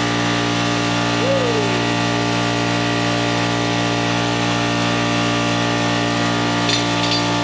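A machine running with a steady hum made of many even, stacked tones, with a short falling squeak about a second and a half in; the hum cuts off abruptly at the very end.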